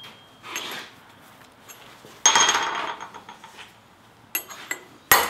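Steel hand tools clinking against a steel welding table: a ringing metallic clink a little past two seconds in that dies away over nearly a second, a few light clicks, then a sharp metal knock near the end.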